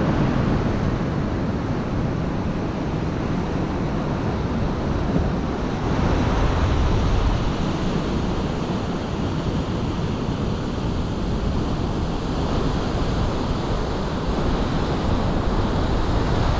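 Steady wash of Pacific Ocean surf with no distinct breaks, mixed with wind rumbling on the microphone.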